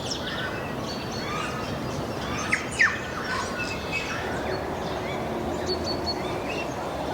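Several small birds chirping and calling, many short overlapping whistled notes, with a couple of sharper, louder downward-sweeping calls about two and a half seconds in, over a steady rush of wind.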